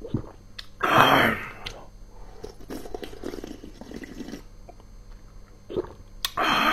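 A person eating close to the microphone: two loud slurps of sauce from the plate, about a second in and near the end, with quieter chewing between.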